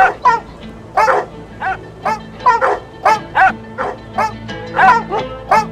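Harnessed husky sled dogs barking over and over, a steady string of two to three barks a second, eager to start running.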